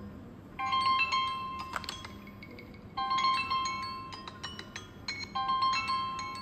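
Smartphone ringtone playing: a short phrase of bright, bell-like chime notes that starts again about every two and a half seconds, each time loud at the start and fading away.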